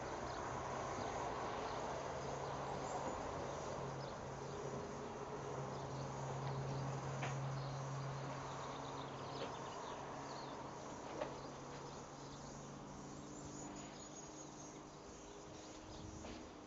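Steady outdoor insect chorus of chirping and buzzing over a low, steady hum, with a single sharp knock about eleven seconds in.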